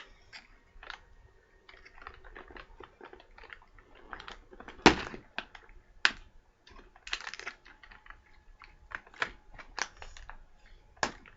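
Irregular light clicks and taps of handling noise, with one louder knock about five seconds in.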